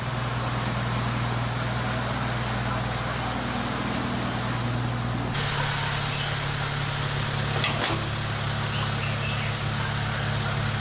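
Isuzu truck engine running steadily as it drives through floodwater, with water splashing and rushing around the wheels. About halfway through it cuts abruptly to another truck's engine idling steadily.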